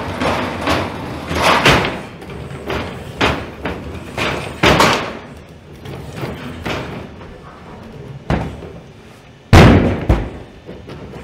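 Boston Dynamics Atlas humanoid robot's feet striking plywood platforms and scaffold boards as it runs and jumps: a string of uneven thuds and slams, the heaviest landing near the end.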